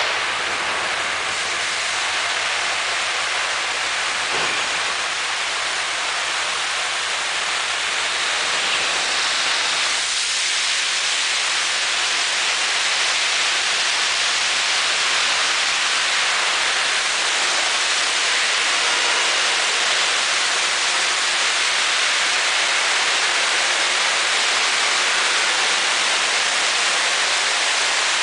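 High-pressure water jets of an automatic tunnel car wash's spray arch hissing steadily against a pickup truck, growing slightly louder and brighter about ten seconds in as the truck nears the spray.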